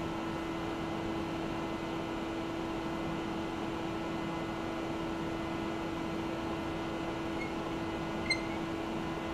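Steady hum of running machinery, with one light tick about eight seconds in.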